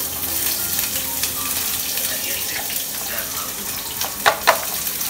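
Sliced onions frying in hot oil in a deep nonstick pan: a steady loud sizzle, with two sharp knocks of a utensil a little over four seconds in.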